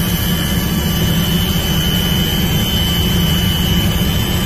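Helicopter cabin noise from inside the cockpit: a steady engine and rotor drone with a thin, steady high whine over it.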